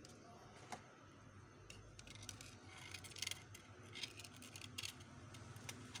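Faint, short crisp rustles and clicks, several times over a few seconds, from adhesive tape and phone display parts being handled.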